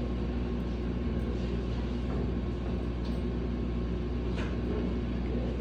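Steady low mechanical hum of room background noise, with a faint click just past four seconds in.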